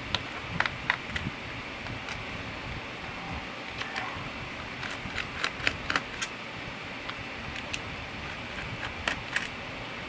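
Small metallic clicks and ticks of a precision screwdriver seating on and turning the tight bottom-cover screws of a laptop, in scattered strokes with a quick run of them about halfway through, over a steady background hiss.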